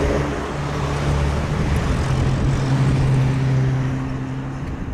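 A motor vehicle running nearby: a steady low engine hum over road noise, its pitch dropping a little about two seconds in and fading near the end.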